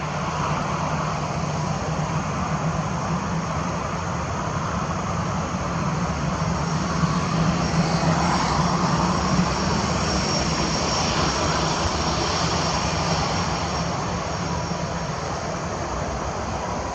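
Airbus A321-211 with CFM56 turbofan engines taxiing and turning close by: a steady jet engine drone with a high whine that grows louder from about eight seconds in.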